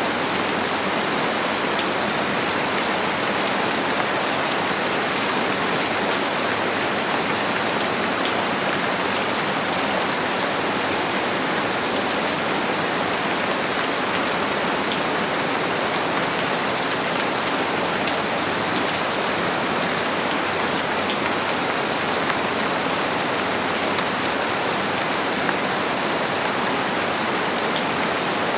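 Steady rain falling: a dense, even hiss with many small drop hits scattered through it, never letting up.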